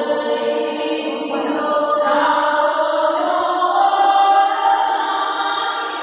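A choir singing in parts, holding long notes and moving to a new, higher chord about two seconds in.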